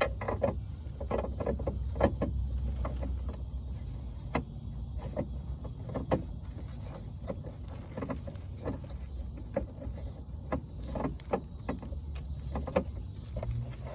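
Irregular small clicks, taps and scrapes of a plastic turn-signal lamp housing being handled and pushed back into its mount behind a car's front bumper while its tabs are lined up, over a steady low rumble.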